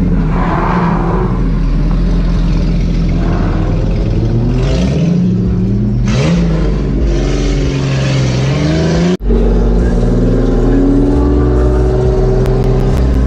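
Car engine running under way, its pitch rising and falling in the first part, then climbing slowly and steadily after a sudden break about nine seconds in, as the car accelerates.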